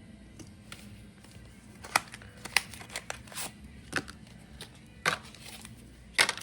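Plastic crinkling and a handful of sharp, irregular snaps and clicks as a replacement iPhone battery's packaging and adhesive tape are handled and peeled.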